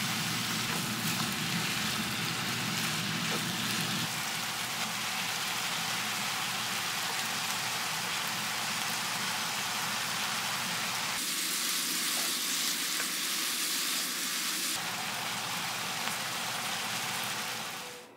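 Food sizzling and frying in a hot pan, a steady crackling hiss that changes abruptly three times as the shots cut.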